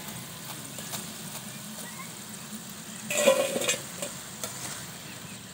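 Potato fingers sizzling steadily in hot oil in a karahi during their first, half-frying stage. About three seconds in, a wire skimmer of fries is tipped into a steel bowl with a brief ringing metallic clatter, the loudest sound, with a few lighter clinks around it.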